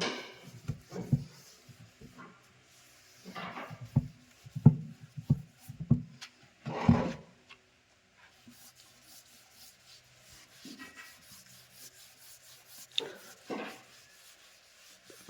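Rubbing and scraping strokes on a wooden surface, with irregular knocks in between; a handful of separate strokes rather than a steady rhythm.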